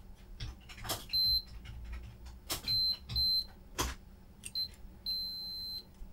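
A digital multimeter's continuity beeper giving short high beeps as the test probes make and break contact, four brief ones and then a longer held beep about five seconds in, with a few sharp clicks between. The beeping signals a very low resistance across the part, which reads about 1 ohm or less.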